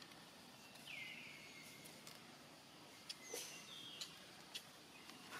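A faint high-pitched animal call about a second in, dropping in pitch and then held steady for about a second and a half. Later come a few short higher chirps and soft clicks.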